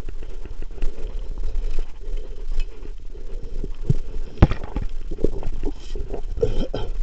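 Mountain bike rolling down a loose gravel track: tyres crunching over stones and the bike rattling, with wind rumbling on the camera's microphone. A few short squeaks come between about four and six and a half seconds in.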